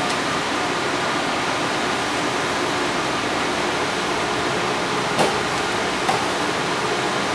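Steady even rush of air conditioning and equipment cooling fans, with two light clicks about five and six seconds in from the plastic cover of a wall-mounted cable enclosure being handled.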